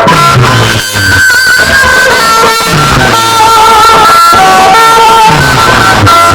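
Loud, heavily compressed music with a sustained melodic lead and deep bass hits that drop in pitch about once a second.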